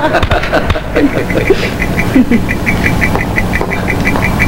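Electronic science-fiction machine sound effect of the aliens' dimension device switched on: a steady low hum with a rapid, even beeping pulse, about five a second, that starts about a second in.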